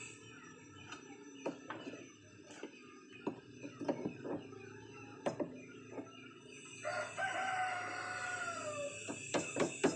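A rooster crows once, starting about seven seconds in: one long call that falls in pitch at its end. Around it, sharp knocks of a hammer tapping at the engine's propeller-shaft coupling, quickening into a fast run of taps near the end.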